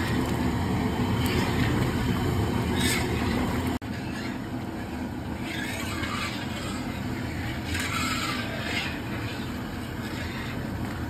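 Steady roar of a gas burner under a large kadhai of milk boiling down to rabdi, with a metal ladle scraping and stirring in the pan every second or two.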